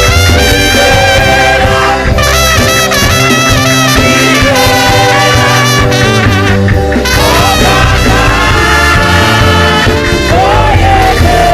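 Live gospel band playing an instrumental passage led by brass horns over bass and drums, with a voice coming in briefly near the end.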